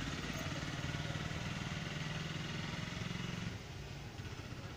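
A motor engine running steadily with a low hum, which cuts off about three and a half seconds in.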